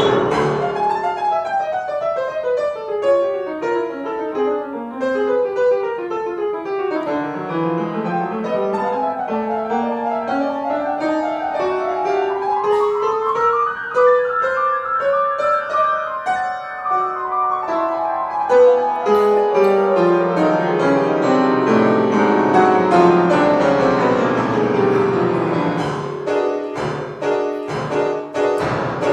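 Grand piano improvising solo: quick cascades of notes running downward, then a long climb upward and a fall back down, ending in a series of hard-struck chords near the end.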